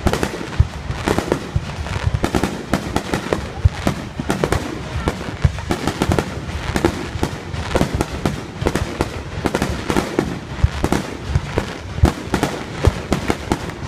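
Fireworks going off in a dense, continuous run of sharp pops and bangs, several a second.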